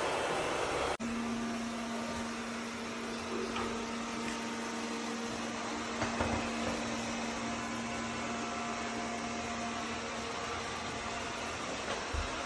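Eureka E20 Plus robot vacuum running with a steady hum. A louder rushing noise cuts off suddenly about a second in.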